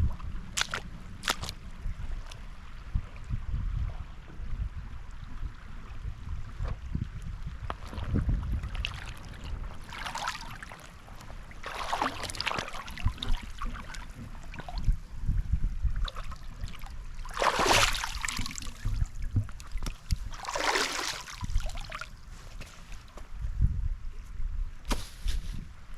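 Water splashing and sloshing in a river, with several separate louder splashes in the second half, over a steady low rumble of wind on the microphone.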